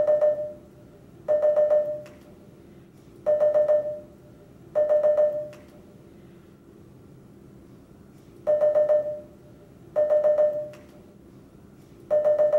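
Nissan Note's new lane departure warning chime: short bursts of a quick run of four or five pitched beeps, repeated in pairs about a second and a half apart, seven bursts in all. It signals that the car is about to drift out of its lane.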